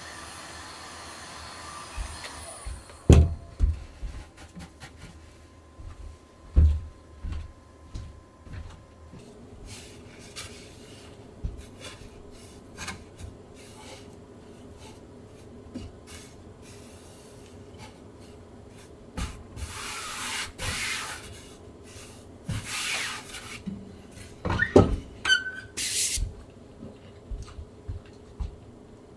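Hand work at a silk-screen printing bench: scattered knocks and clunks, two scraping, rubbing strokes of a second or two past the middle, and a loud knock with a brief squeak near the end. A steady rushing noise stops about two and a half seconds in.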